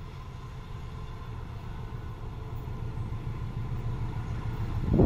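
Diesel locomotive hauling a passenger train: a low engine rumble that grows slowly louder as the train comes closer, with a faint steady high tone over it. A loud thump comes right at the end.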